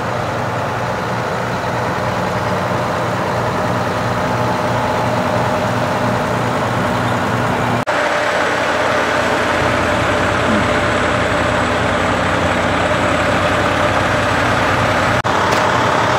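Fire engines' diesel engines idling in a steady drone, which breaks off for an instant twice.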